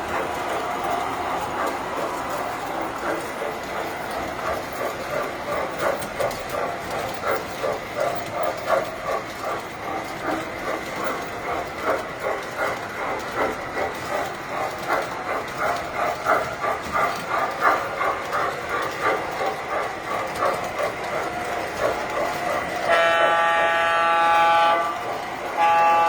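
A tinplate model train running on its track, its wheels clicking rhythmically over the rail joints about twice a second. Near the end the train gives two long signal blasts.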